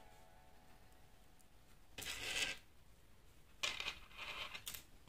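Faint clinks and rustles of small metal hoop earrings being handled: one short burst about two seconds in, then a cluster of several more near four seconds.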